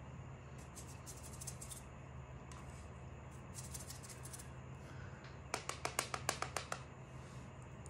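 A quick run of about ten light, sharp clicking taps lasting a little over a second, over a faint steady hum. Softer patches of quick rattling clicks come twice earlier on.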